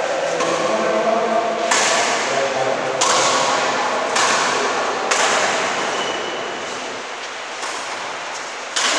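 Badminton rally: about five sharp racket strikes on the shuttlecock, one every second or so with a longer gap before the last, each trailing off in the echo of a large hall.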